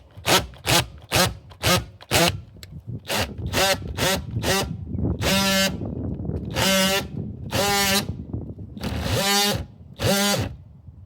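Oscillating multi-tool with a diamond flush-cut blade cutting fiber cement siding in short squeezes of the trigger: a quick run of brief taps, then from about five seconds in, longer half-second bursts of a pitched buzz. The cut is being made slowly to avoid cutting too deep.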